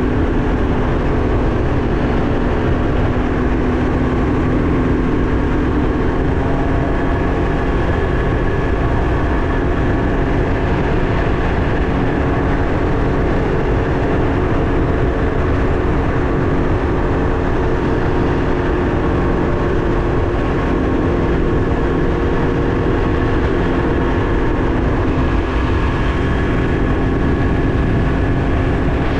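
Can-Am Ryker 900's three-cylinder engine running at a steady cruising speed, heard from onboard while riding, with heavy wind rumble on the microphone.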